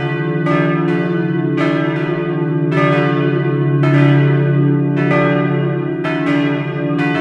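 Peal of three swinging bronze church bells tuned d', e' and f-sharp', cast by Laudy and hand-rung by rope in a wooden bell frame. Strikes fall irregularly at about two a second, overlapping, each one ringing on under the next.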